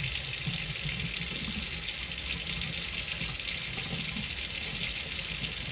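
Water running steadily into a stainless steel kitchen sink and draining through the basket strainer.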